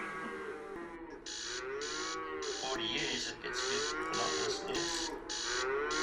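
Dairy cattle mooing, call after call rising and falling in pitch. From about a second in, a high pulsing hiss also switches on and off a couple of times a second.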